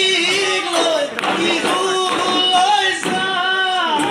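Men singing an Assamese folk song with drawn-out, wavering notes, over occasional dhol drum strokes, in a reverberant hall.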